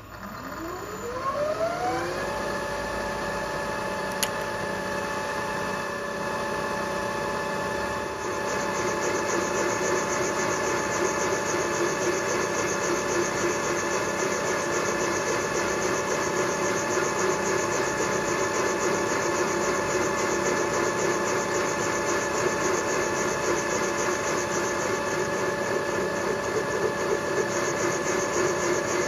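Milling machine spindle spinning a boring head up to speed, its whine rising over the first two seconds and then holding steady. From about eight seconds in, a louder rough cutting noise joins as the boring tool's carbide insert bores out a valve-seat recess in the cast-iron A-series cylinder head to take a hardened unleaded seat insert.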